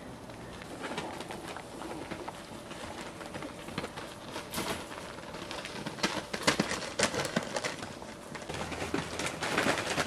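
Chihuahua puppies playing: soft low cooing whines in the first few seconds, then scuffling and sharp clicks from about four seconds in as they tumble against the wire pen and each other.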